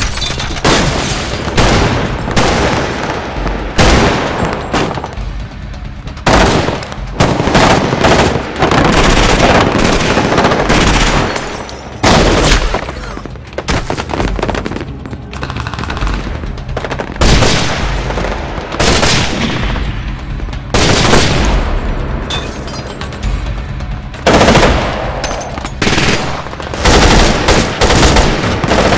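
Gunfire sound effects: repeated bursts of automatic fire and single shots, some in quick runs and some spaced a second or more apart, each shot leaving an echoing tail.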